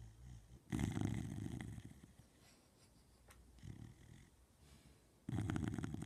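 Sleeping dog snoring: a loud snore about a second in and another near the end, with a softer breath between them.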